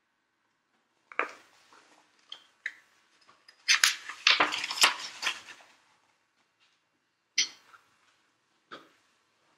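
Objects being handled: a string of sharp clicks and clattering knocks, densest from about three and a half to six seconds in, then two more single clicks near the end.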